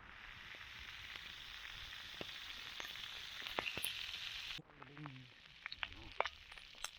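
Bacon frying in a pan over a campfire: a steady sizzle with small pops, which cuts off suddenly about two-thirds of the way through, leaving a few sharp pops and crackles.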